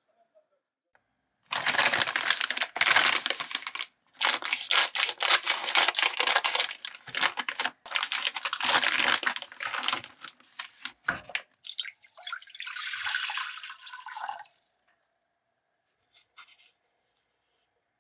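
Plastic food pouches crinkling and being torn open by hand, in several bursts of crackling.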